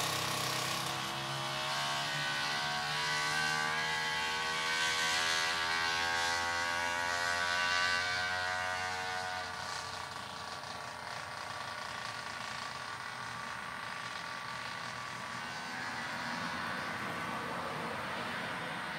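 A vehicle engine, its pitch rising slowly for about nine seconds, then giving way to a steady rushing noise.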